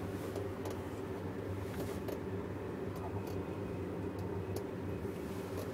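Steady low hum and rumble inside a moving cable car gondola cabin as it rides along its cable, with a few faint ticks.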